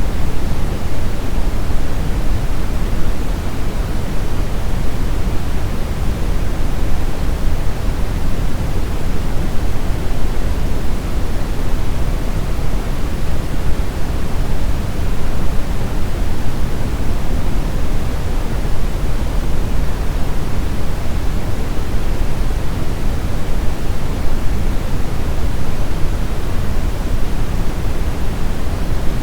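Brown noise: a steady, unchanging hiss-like rumble, strongest in the deep bass and falling away toward the treble, with no events.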